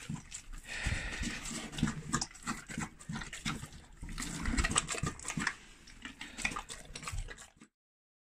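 A bear eating rice porridge from a metal feeding bowl makes a run of irregular, short wet eating noises and clicks. The sounds cut off abruptly near the end.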